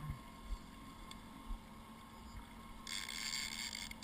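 Outboard motor running steadily at trolling speed, under wind and water noise. About three seconds in comes a hiss lasting about a second.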